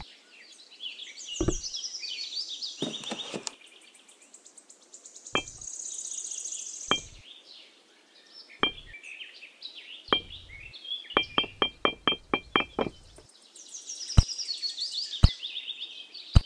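Tiny clay bricks and stones clicking and tapping as they are set down one by one on a miniature brick structure, with a quick run of a dozen taps in the middle, over birdsong chirping in the background.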